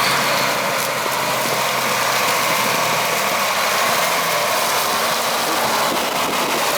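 Heavy harvest machinery running steadily, a loud, even mechanical noise with a faint low engine hum under it, cutting in suddenly.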